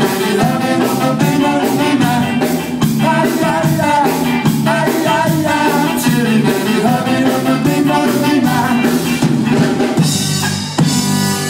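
Live ska band playing through a PA: electric guitars, saxophone and drum kit, with a singer at the microphone. Near the end the cymbals get brighter.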